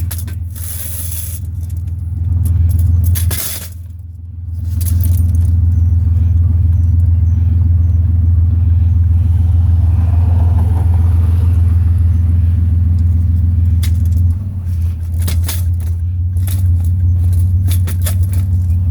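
Motor vehicle running, a steady low engine and road drone heard from inside the vehicle, with a few short rattles and clicks near the end.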